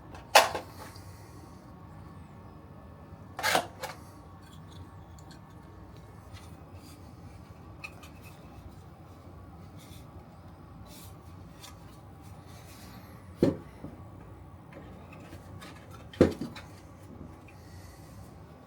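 Handling noise while a travel router is unboxed: a few sharp clicks and knocks, spread out, among faint ticking and rustling of the packaging.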